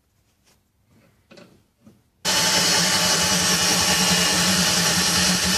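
Cordless drill running steadily at full speed, boring a hole through the cabinet side panel. It starts abruptly about two seconds in, after a few faint handling sounds.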